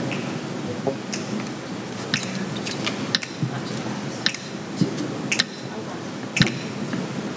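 Scattered light clicks and taps at irregular intervals over a low, steady background hum, the small noises of performers and audience settling before a song.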